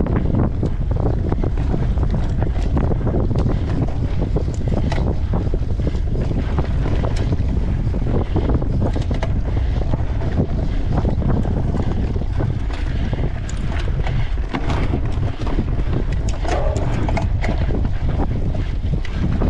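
Wind buffeting the microphone of an on-bike camera as a mountain bike rides a forest trail, a steady low rumble, with frequent small clicks and rattles from the bike over the rough ground.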